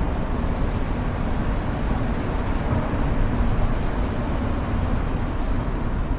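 Steady road noise of a car being driven: tyre and engine rumble, mostly low in pitch, with a faint steady hum.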